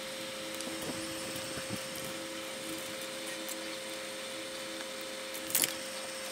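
A small motor running with a steady hum and hiss, with a short clatter about five and a half seconds in.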